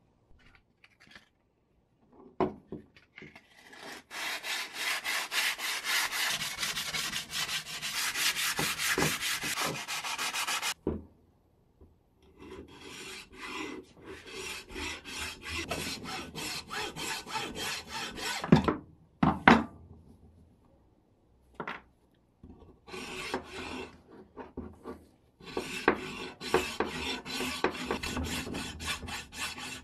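Hacksaw cutting through a block of cured epoxy resin in several runs of quick back-and-forth strokes, with short pauses between. A couple of sharp knocks about two-thirds of the way through.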